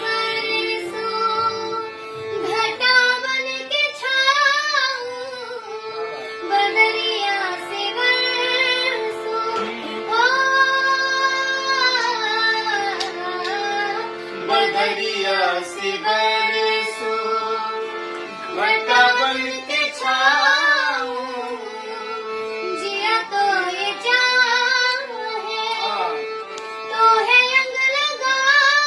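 A young girl singing an ornamented, sliding melody in phrases of a few seconds each, over a steady held drone note.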